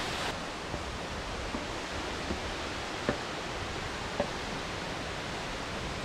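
Steady rush of falling water from the gorge's waterfall and stream, with a few faint light ticks about once a second.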